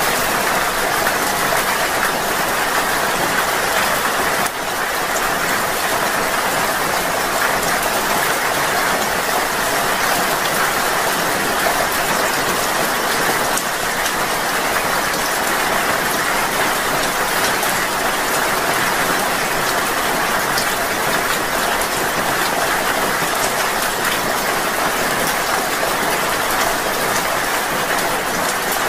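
Steady rain falling, an even, unbroken hiss of drops with no pauses.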